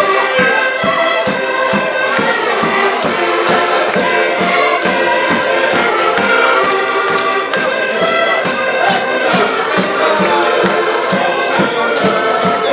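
Accordions playing a lively Portuguese folk tune over a steady pulsing beat.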